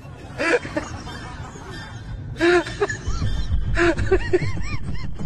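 A person laughing in short bursts of rising-and-falling 'ha-ha' sounds, with a low rumble underneath from about halfway through.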